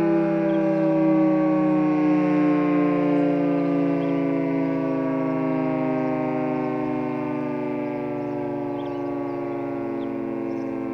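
Federal Signal 2T22 dual-tone outdoor warning siren sounding a steady Alert tone. Its chord of two pitches slides slowly down and the level eases as the siren winds down.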